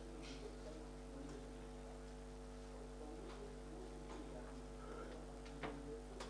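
Steady electrical mains hum through the microphone and sound system, with a few faint clicks scattered through it and sharper ones near the end.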